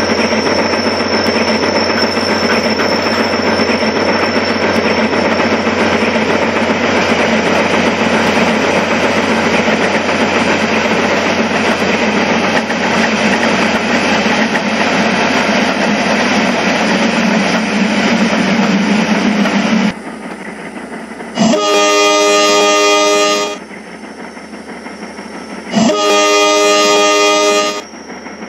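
Steady noise of a running train, which stops about twenty seconds in, followed by two train horn blasts of about two seconds each, a few seconds apart.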